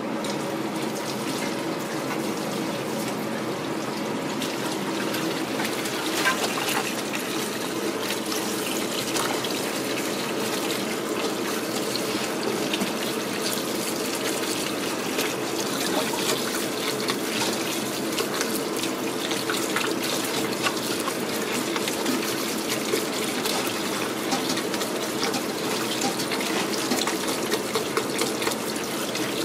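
Tap water running steadily into a metal colander in a stainless steel sink while hands rub and squeeze sliced vegetables in it, with small splashes and wet clicks throughout.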